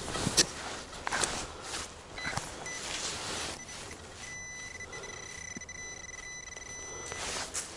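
Metal detector signalling a target: a brief high beep, then a steady high tone held for about three seconds. Scraping and knocking sounds come before it, in the first half.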